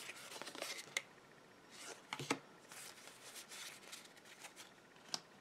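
Faint rustling of Pokémon trading cards being handled and flipped through, with a few light clicks: one about a second in, two a little after two seconds, and one near the end.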